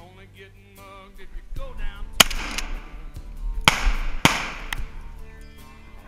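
Three shotgun blasts, each trailing off in an echo: one about two seconds in, then two more in quick succession a second and a half later. Country music plays underneath.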